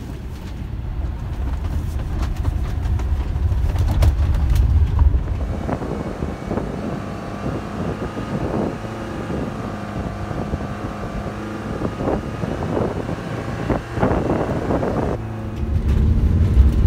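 Fiat camper van driving, heard from inside the cab: a continuous low engine and road rumble, with a steady engine tone through the middle and an abrupt change in the sound near the end.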